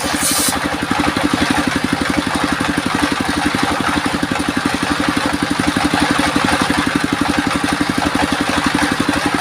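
Engine driving a homemade circular-saw sawmill, running steadily with a fast, even chugging pulse. A short high hiss is heard right at the start.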